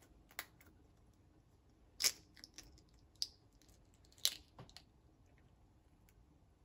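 Eggshells cracking and clicking as eggs are separated: scattered sharp cracks, the loudest about two seconds in and again a couple of seconds later, with a few softer clicks between.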